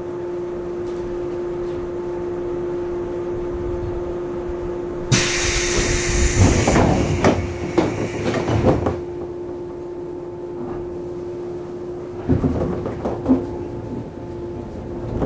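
JR East 113 series electric train standing with a steady hum. About five seconds in, a sudden loud hiss of air sets in, with the clatter of the pneumatic sliding doors closing, and lasts about four seconds. A few clunks follow near the end.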